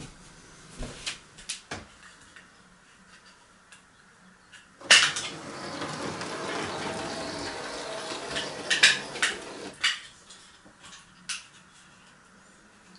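Small analogue model locomotive running along its track on an automatic shuttle layout. Its motor whirs and its wheels rattle for about five seconds, then it clicks to a stop. There are a few sharp clicks before it sets off.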